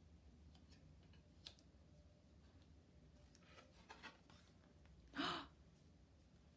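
Quiet room with faint clicks and rustles as a cardboard board-book page is turned, about four seconds in. About five seconds in comes a short, breathy vocal sound, louder than the page handling.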